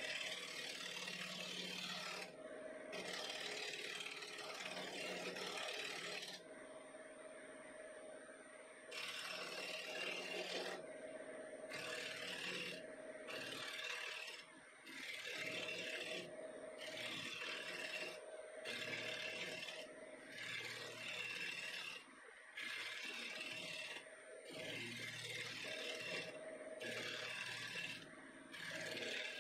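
Bowl gouge cutting the inside of a spalted maple bowl spinning on a wood lathe: a scraping, rasping cut as shavings peel off. It comes in passes with short breaks, a few long ones at first, then shorter ones about every second and a half.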